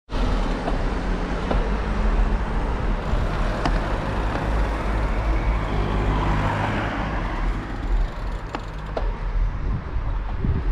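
Wind rushing over the microphone and tyre noise of a bicycle rolling along a road, a steady low rumble with a few sharp clicks and rattles scattered through it.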